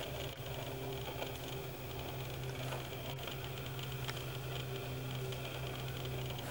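Steady low mechanical hum with a faint whir that comes and goes: the camera's own lens motor heard through its built-in microphone.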